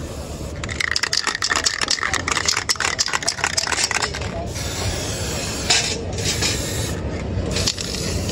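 Aerosol spray-paint can rattling with a fast run of clicks during the first half. After that it sprays in long hissing bursts with a couple of short breaks.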